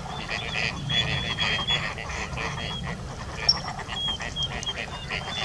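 Ducks calling in a dense, continuous chorus of short repeated quacks, with one brief high squeak about three and a half seconds in.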